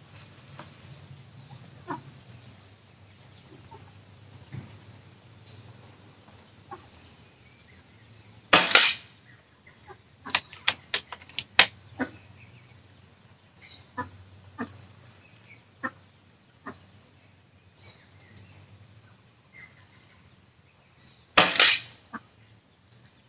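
Two shots from a .177 Diana Outlaw Gen2 regulated PCP air rifle firing slugs, about thirteen seconds apart, each a short sharp crack. A quick run of four clicks comes a second or two after the first shot as the action is cycled for the next slug.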